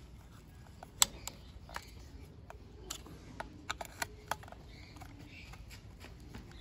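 Sharp clicks and taps of a small screwdriver turning screws into a plastic toy train body, with the plastic parts knocking in the hands. The loudest click comes about a second in, and a quick cluster of clicks follows near the four-second mark.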